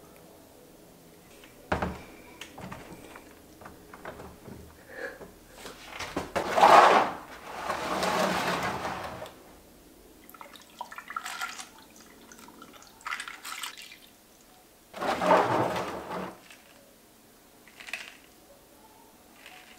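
Iced tea poured from a plastic pitcher into a glass of ice: a long splashing pour about six to nine seconds in and another shorter one around fifteen seconds. A sharp knock near the start and light clinks and taps fall between them.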